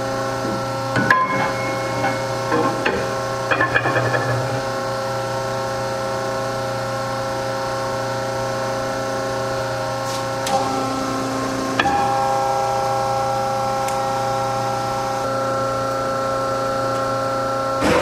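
Hyd-Mech S-25A hydraulic horizontal band saw running with a steady hum, while a metal bar is set down on its table with a few knocks and scrapes about one to four seconds in. A click near twelve seconds, after which the hum changes pitch and gets a little louder.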